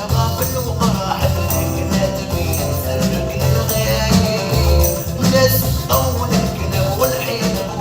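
Instrumental music with a steady percussion beat.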